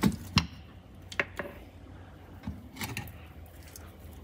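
Old transmission mount and its metal parts being worked loose by hand under a Triumph TR7: a series of sharp knocks and clicks, the two loudest at the very start, then a few softer ones spread out.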